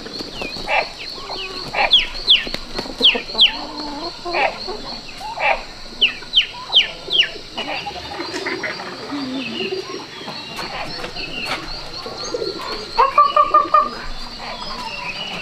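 Farmyard chickens calling: repeated short, high falling peeps in clusters, and a run of clucking calls about 13 seconds in. A steady high, fast-pulsing trill runs underneath.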